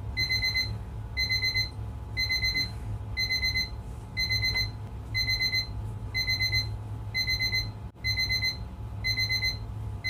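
Electronic alarm beeping: short clusters of rapid high beeps repeating about once a second, over a steady low hum.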